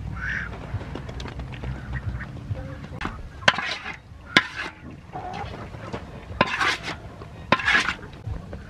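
Ducks quacking, mixed with a wooden spatula scraping wet chopped water morning glory mash out of a large aluminium basin. The spatula knocks sharply against the metal once, about four seconds in.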